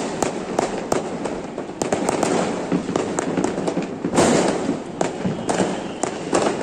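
Fireworks going off in a continuous barrage: many sharp bangs and crackles over a steady noisy wash, with a louder stretch of bursts about four seconds in.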